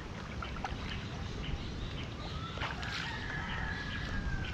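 River water sloshing and splashing around legs wading waist-deep as a fishing net is hauled through it, over a low steady rumble. A faint, drawn-out high tone sounds in the second half.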